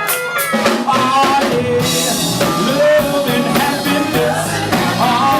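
Live band playing a soul-blues number: drum kit, bass and guitar keeping a steady beat under a bending melodic line.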